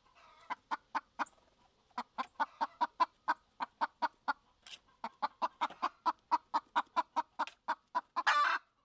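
Rooster clucking in quick runs of short calls, about four or five a second, with two brief pauses. A longer, louder squawk comes near the end.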